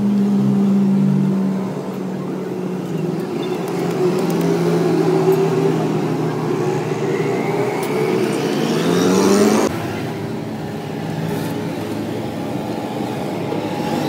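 A motor vehicle engine running nearby, its pitch rising steadily for several seconds as it speeds up, then cutting off suddenly a little past halfway. A lower steady engine hum carries on underneath.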